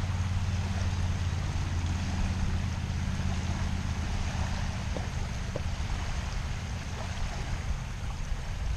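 Steady low wind rumble on the microphone over small waves lapping on a sandy shoreline, with a few faint ticks about halfway through.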